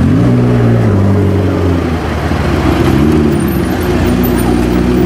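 McLaren 650S's twin-turbo V8 running at low speed as the car creeps through traffic, with a brief rise in revs near the start and again about three seconds in.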